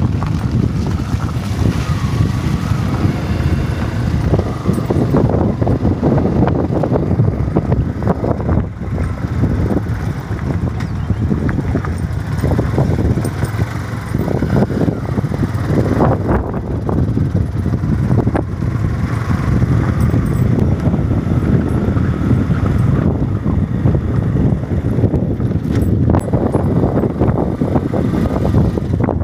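A vehicle travelling over a rough, unpaved road: a continuous low rumble broken by irregular knocks and rattles, with wind noise on the microphone.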